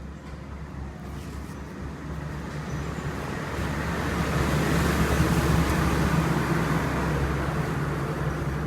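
A motor running with a steady low hum, growing louder over the first few seconds and then holding steady.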